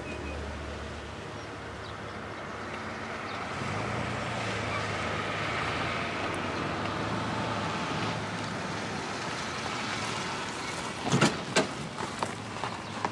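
A motor vehicle running steadily, with a low hum. Near the end come several sharp, loud knocks.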